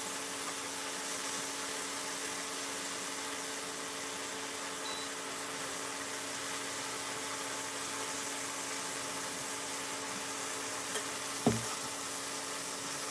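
Armadillo pieces sizzling steadily as they brown in a frying pan on an induction cooktop, over a faint steady hum. Tongs knock once against the pan near the end.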